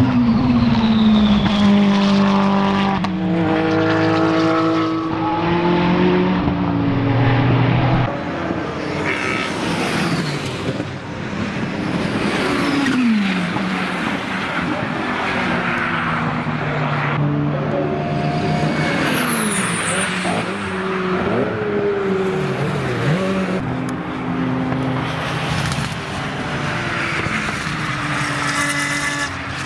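GT race cars, among them a Ferrari 488 GT3 with its twin-turbo V8, passing at speed on a circuit. Their engines rise and fall in pitch through gear changes and braking, with several falling sweeps as cars go by.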